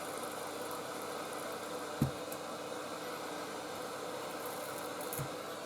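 Heat gun blowing hot air steadily with a motor hum, used to soften the glued strips on a phone's back panel. Two short low knocks come about two and five seconds in.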